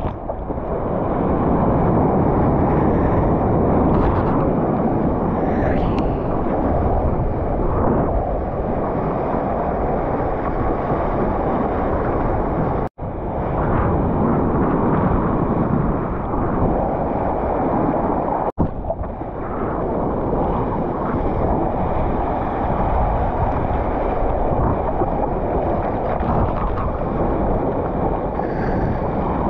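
Steady rush of water past a surfboard riding whitewater, with wind buffeting the microphone close to the board; the sound cuts out for a moment twice.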